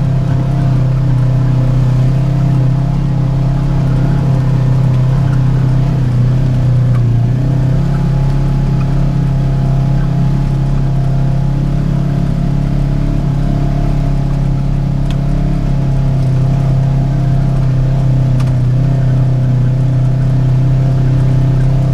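Polaris side-by-side UTV engine running at a steady, low speed, heard on board as a constant low hum that holds the same pitch throughout.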